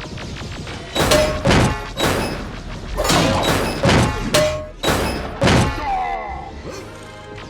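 A rapid string of cartoon impact sound effects, thuds and whacks, about eight or nine hits roughly half a second apart, some with a short ringing tone, over background music.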